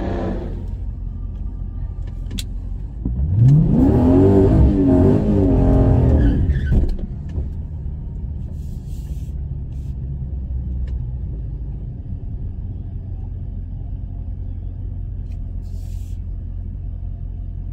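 Drag car's engine revved up hard and held high for about four seconds during a line-lock burnout, then settling back to a steady low idle rumble.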